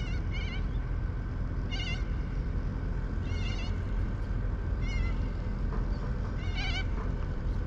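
A bird calling repeatedly with short, quavering, high cries, about six in all, spaced a second or two apart, over a steady low rumble.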